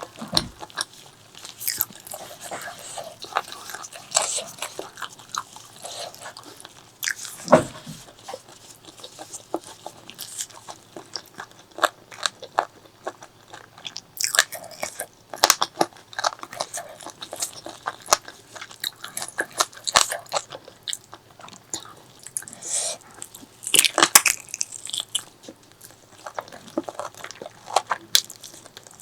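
Close-miked eating: biting, crunching and wet chewing of spicy pork leg, with irregular sharp clicks and mouth smacks and a louder bite near a quarter of the way in and again a little past three-quarters.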